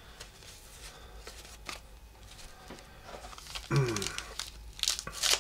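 Baseball trading cards being handled, with faint rustles and small clicks, then crisp crinkling near the end as a wax-paper card pack is picked up and handled.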